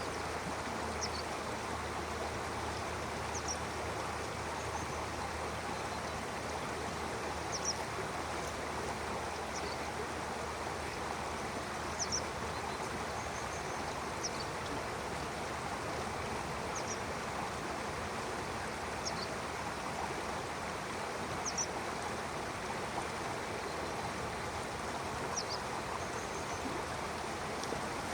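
Stream water flowing steadily. A bird gives short, high chirps every two to four seconds over the rush of the water.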